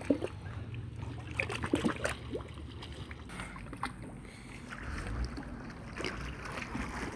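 Lake water lapping and sloshing, with a low wind rumble on the microphone and a few scattered light knocks and splashes.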